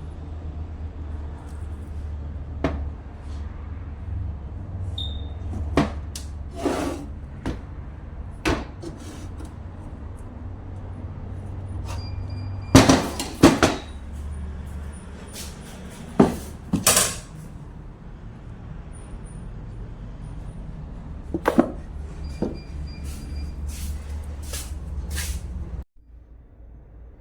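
Scattered knocks and clanks of tools and parts being handled, the loudest a quick cluster of clanks midway, over a steady low hum that cuts off abruptly near the end.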